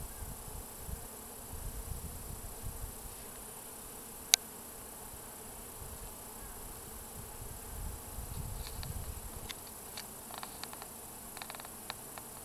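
Quiet outdoor ambience: low gusts of wind rumbling on the microphone, one sharp click about four seconds in, and a few faint ticks near the end.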